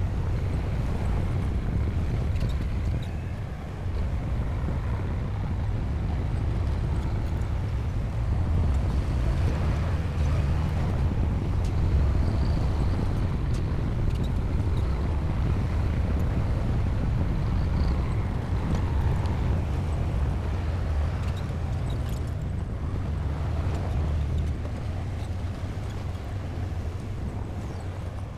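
Diesel engine of a Komatsu D60P bulldozer running steadily with a deep, continuous engine note, growing a little louder through the middle and easing off near the end.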